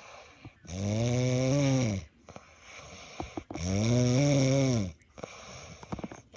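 Snoring: two long pitched snores about two and a half seconds apart, each rising and falling gently in pitch, with a quieter breath between them.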